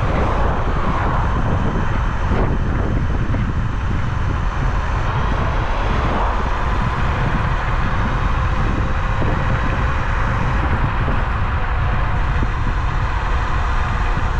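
Steady wind buffeting on the microphone, with road noise from a Bluetran Lightning 72V electric scooter being ridden.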